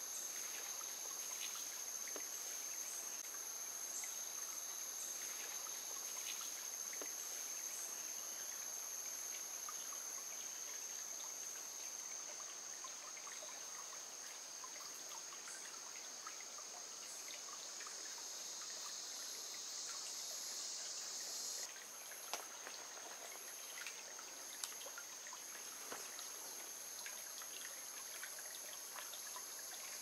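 Shallow forest stream trickling, under a steady chorus of high-pitched insect trilling. One of the insect drones cuts off suddenly about two-thirds of the way through, and a few light ticks sound near the end.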